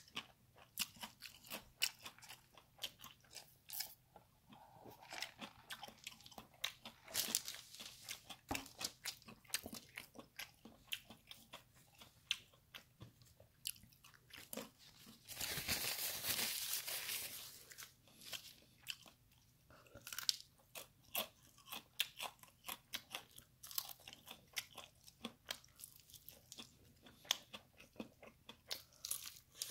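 Close-up crunching and chewing of crispy fried chicken breading, with many short crisp bites and chews. About halfway there is a steady rush of about two seconds, a drink sucked up through a straw.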